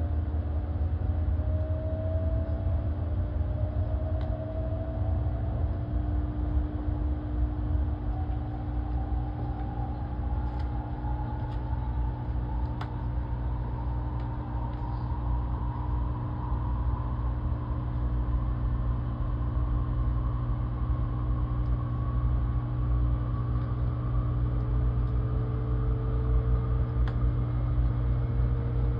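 Kyushu Shinkansen Sakura bullet train running, with a steady low rumble and hum and an electric whine that slowly climbs in pitch as the train gathers speed.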